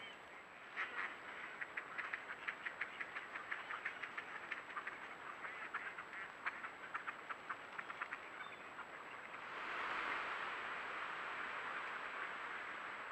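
A flock of ducks quacking, many short quacks in quick succession. From about nine and a half seconds in, a louder, even rushing noise takes over.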